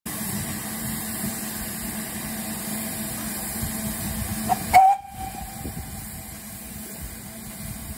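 GWR 'Castle' class steam locomotive 4079 Pendennis Castle gives one short whistle about halfway through, over a steady hiss. The whistle is the loudest sound here.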